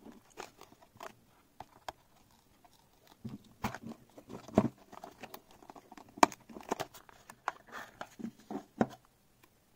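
Handling noise from unboxing a small electronics box: cardboard and a plastic sleeve sliding, rubbing and tapping under the hands, with scattered clicks and knocks as the box is opened and the device taken out. Two sharper knocks stand out, one a little under halfway through and one just past the middle.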